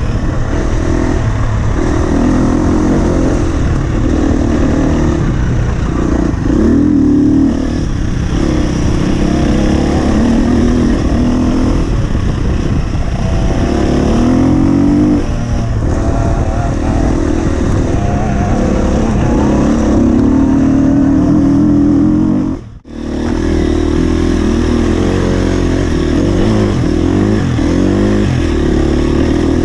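Husqvarna FE 250 four-stroke single-cylinder enduro motorcycle engine being ridden, revving up and down with the throttle. The sound cuts out for a moment about three-quarters of the way through, then carries on.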